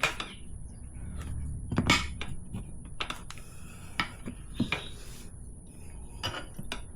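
Metal tire irons clinking and knocking against the motorcycle's wheel rim as the tire is pried off, in scattered irregular strikes with the loudest about two seconds in.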